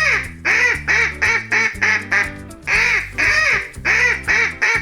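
Duck quacking in a fast run of short quacks, several a second, with a brief break about two and a half seconds in, over background music with steady low notes.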